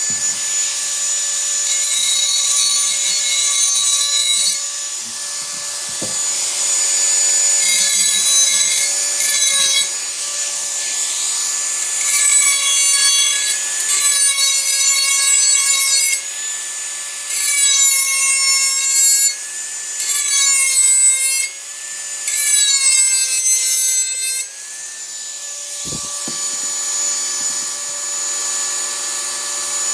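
Dremel 4000 rotary tool running at high speed with a steady whine, its grinding bit pressed against a tool blade in about six passes of a few seconds each. Each pass adds a harsh high scraping, and the motor's pitch sags slightly under load: a blade edge being sharpened.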